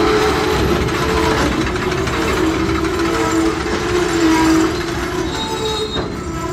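Freight train of open gondola wagons rolling past on the rails: a steady rumble and clatter of wheels and couplings, with a wavering squeal running through it. It grows a little quieter about five seconds in.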